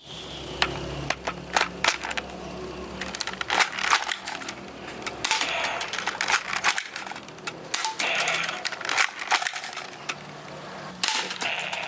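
A plastic toy sniper blaster being handled: irregular clicks, rattles and knocks with some rustling.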